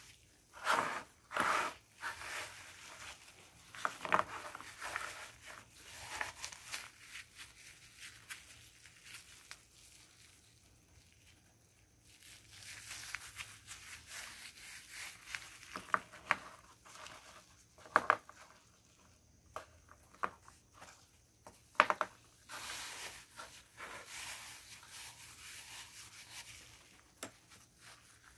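Heart-shaped naphthalene mothballs being crushed and crumbled into powder between gloved hands: gritty crunching and crackling in bursts, with a few sharp cracks in the second half.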